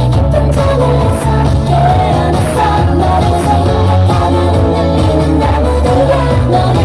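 K-pop girl group singing live over a pop backing track with a heavy bass beat, played loud through concert speakers.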